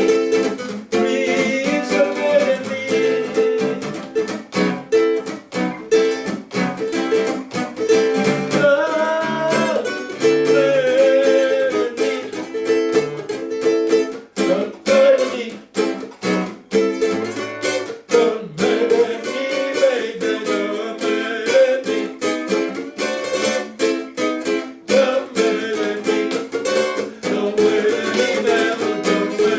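Music: fast, even strumming on a plucked string instrument such as a ukulele, with a wavering melody line above it.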